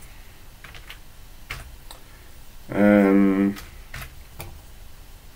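Scattered computer keyboard keystrokes clicking as a line of text is deleted and retyped. About three seconds in, a person's held hesitation sound lasts under a second and is the loudest sound.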